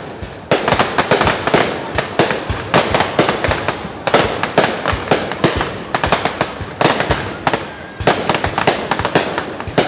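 Aerial fireworks going off in a dense barrage of sharp bangs, several a second, each with a short echoing tail.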